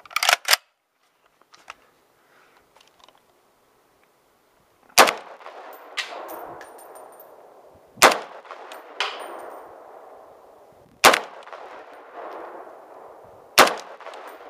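A few sharp clicks, then four rifle shots from an FN SCAR 17S in 7.62 mm, the first about five seconds in and the rest roughly every three seconds. Each shot is followed by a metallic clang ringing out for about a second from the hanging steel pot target being hit.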